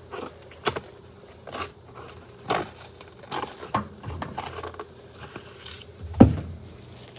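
Plastic wrap being pulled from its box and handled, with short rustles and light knocks on the counter and one louder thump about six seconds in.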